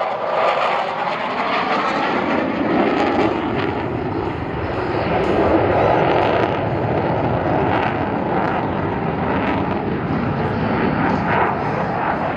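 F-16 fighter jet flying a display, a loud steady rushing jet noise that swells a little about halfway through.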